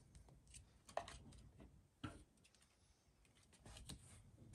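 Near silence broken by a few faint, short clicks of trading cards and packs being handled on a table, the clearest about one and two seconds in.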